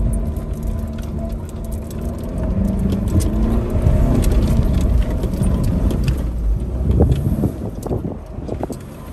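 Jeep Renegade driving over sand, its engine working under load with a heavy low rumble that grows louder about three seconds in. Knocks and rattles from the body jolting over rough ground come in the second half.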